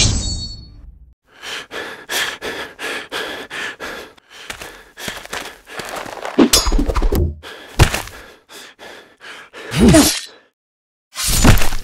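Added fight sound effects for an action-figure stop-motion: a quick run of short knocks like footsteps, then heavier thunks and hits with gasp-like cries, the loudest near the end.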